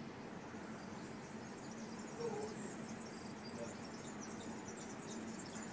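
Faint outdoor evening ambience: insects chirping in a high register over a low steady hum, with a couple of brief faint sounds about two and three and a half seconds in.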